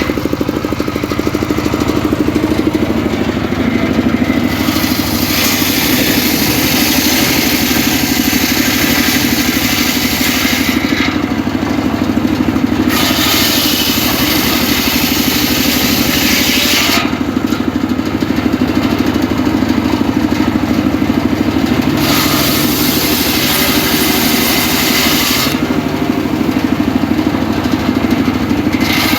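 Homemade circular saw with its engine running steadily while the blade cuts mahogany. The cutting noise rises over the engine in three long stretches of several seconds each and drops back between them.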